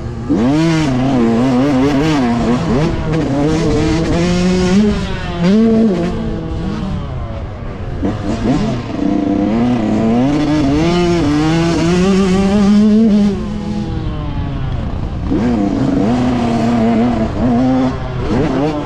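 Yamaha YZ125 two-stroke single-cylinder motocross engine under hard riding, its pitch climbing and dropping again and again as the throttle is opened and closed, over a steady rush of noise.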